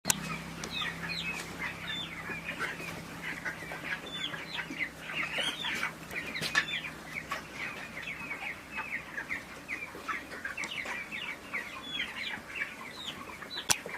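A shed full of young broiler chicks peeping: many short high chirps overlapping without a break. A single sharp click comes near the end.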